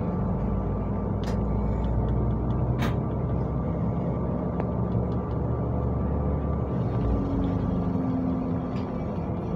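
City bus engine and road noise heard from inside the cabin while driving, a steady drone whose engine note drifts in pitch. A couple of sharp clicks or rattles come about one and three seconds in.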